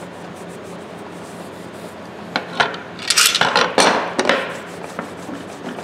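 A cloth rag wiping wax onto a large pair of steel Channellock 460 tongue-and-groove pliers. From about two seconds in comes a run of sharp metal clicks and clacks with scraping as the pliers are handled and their jaws opened on the board, then a few lighter clicks.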